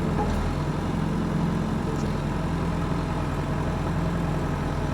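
John Deere 450's engine running steadily at a low, even speed.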